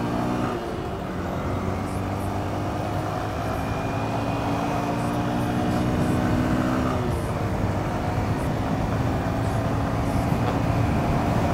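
Honda Bros 160 motorcycle's single-cylinder four-stroke engine pulling under way, its pitch climbing slowly and dipping briefly twice, about half a second in and about seven seconds in, as it changes gear.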